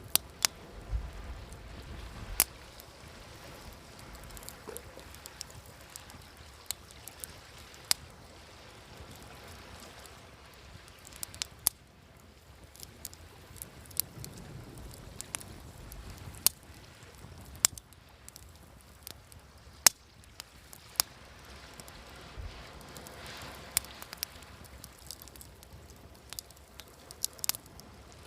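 Wood fire crackling, with sharp irregular pops and snaps, over the soft wash of waves that swells up a few times.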